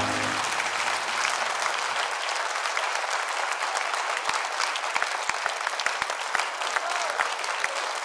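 Theatre audience applauding: dense, steady clapping from many hands. The band's last chord dies away at the very start.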